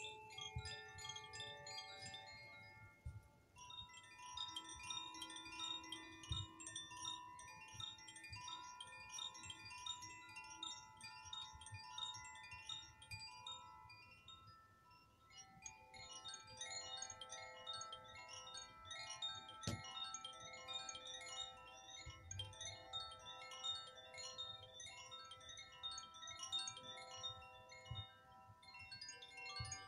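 Metal chimes stirred by hand: a dense shimmer of many overlapping ringing tones. It thins out around the middle, then swells again with a fuller set of notes.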